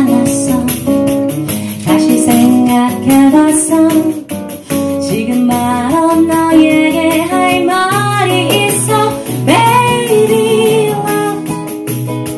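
Live pop song: a woman singing a wordless melody over plucked-string accompaniment and a bass line, her voice sliding between notes in the second half.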